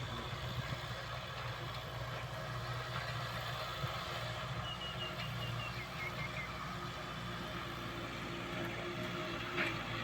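Kubota M6040S tractor's four-cylinder diesel engine running steadily while ploughing. A short run of high chirps sounds about halfway through.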